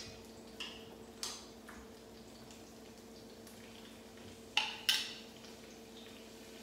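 Utensil and anchovy fillets going into a skillet of garlic and oil: a few light taps, then two sharp clinks of metal on the pan about four and a half seconds in, over a steady low hum.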